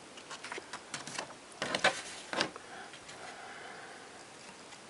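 A quick run of small clicks and taps as two compact discs and their paper insert booklet are handled, loudest about two seconds in, then settling to faint background.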